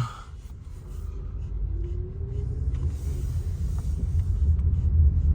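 Car driving: a low rumble of engine and road noise that grows steadily louder, with a faint rising engine tone about two seconds in.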